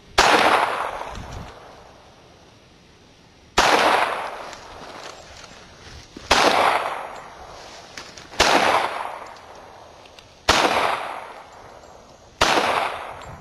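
Six pistol shots fired one at a time at an unhurried pace, two to three and a half seconds apart. Each sharp crack trails off for a second or so.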